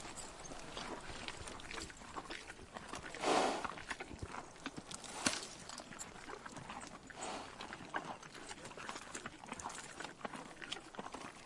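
An animal moving, with irregular clicks and knocks and one louder breathy rush of noise about three seconds in.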